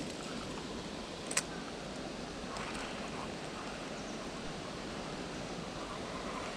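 Steady rush of flowing stream water, with one sharp click about a second and a half in.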